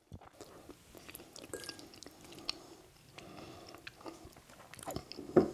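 A person chewing a mouthful of noodle stir fry, with small wet clicks throughout; a louder short sound comes near the end.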